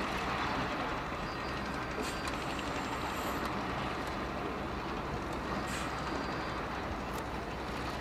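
Heavy earthmoving machinery running steadily: a diesel engine drone, with a few short high metallic squeaks or clanks over it.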